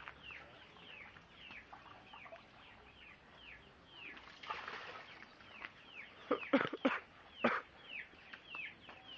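Chickens peeping: a steady run of short, high, falling calls, about two or three a second. A few sharp knocks come about two-thirds of the way through.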